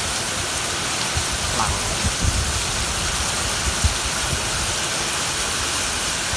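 Steady rain falling, an even hiss, with scattered low thumps.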